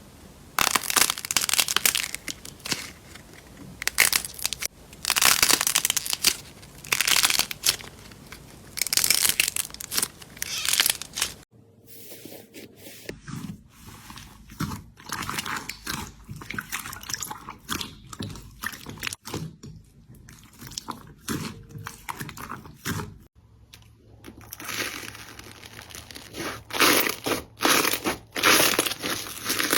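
Slime being handled, making crunchy, crackling sounds. It comes in three separate clips that cut abruptly, about a third and about two-thirds of the way through.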